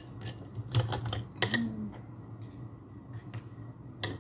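Metal fork and spoon clinking and scraping against a ceramic plate while eating. There are a few sharp clicks, the loudest near the end.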